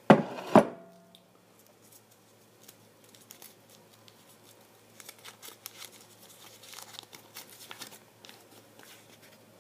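Two sharp knocks about half a second apart, then faint, scattered crinkling as a folded paper slip is drawn from a container and unfolded.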